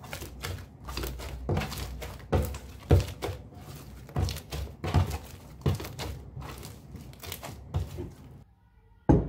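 Hands squeezing and stretching a large blue fluffy slime: repeated wet squelches and crackles, about two a second, which stop shortly before a single sharp knock near the end.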